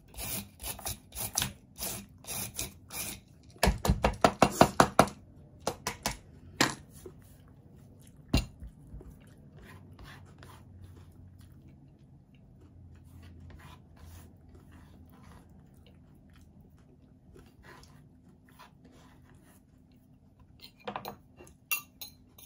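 Small knife cutting through crisp, unripe green mango against a wooden cutting board: a quick run of sharp cutting strokes in the first five seconds, then a few scattered knocks. Near the end a fork clicks on a plate.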